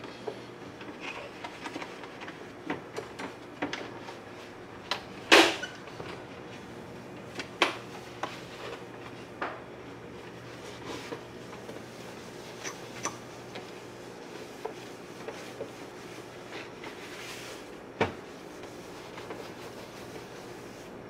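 Gloved hands wiping and handling the plastic housing of a Singer Simple sewing machine with a cloth: soft rubbing with scattered knocks and taps, the loudest about five seconds in and another sharp one near the end.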